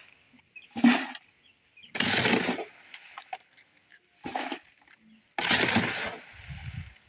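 Wet concrete being worked by hand: four rough scraping strokes, each under a second long, with short pauses between.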